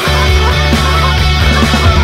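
Background rock music with guitar and a steady bass line.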